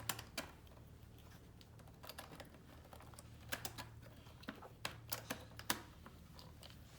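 Small plastic push buttons clicking and tapping against a plastic pegboard as they are picked up and pressed in, about ten light irregular clicks.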